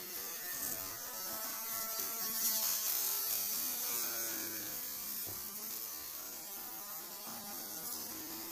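Slices of beef sizzling on the wire mesh of a tabletop barbecue grill, a continuous hiss over a steady hum.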